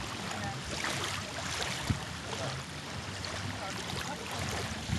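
Wind on the microphone over choppy lake water: a steady rushing noise with low rumble, broken by one short tap about two seconds in.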